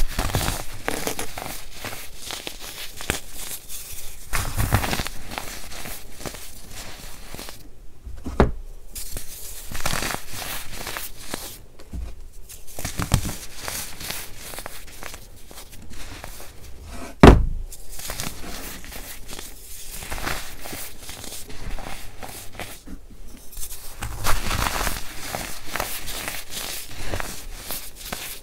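Hands squeezing and crumbling packed baking soda powder, a soft crunching and crackling with powder sifting through the fingers. A few sharper crunches stand out, the loudest a single sharp hit partway through.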